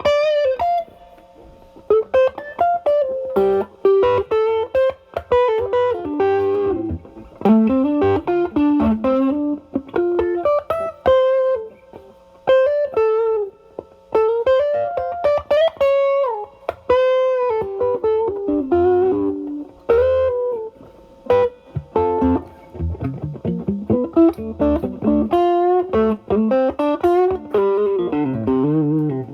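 Stratocaster single-coil electric guitar through an Ibanez Tube Screamer Mini overdrive and a Marshall Valvestate amp's drive channel, playing improvised single-note lead phrases with string bends and vibrato. The guitar's volume is rolled back, so the overdriven tone cleans up.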